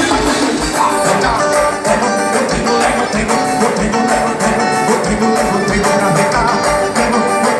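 Live band music with a steady bass beat.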